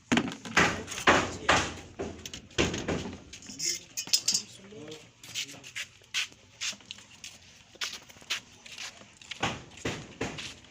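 Irregular knocks and clatter of hard objects, several sharp strikes close together near the start and sparser ones later, with a brief voice-like sound around the middle.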